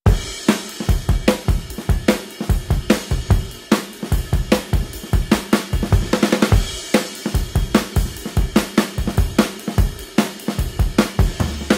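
Background music with a steady drum-kit beat: kick, snare and cymbals.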